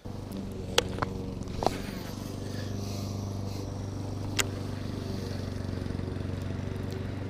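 A steady low motor hum with a few sharp clicks, one about a second in and another after about four seconds.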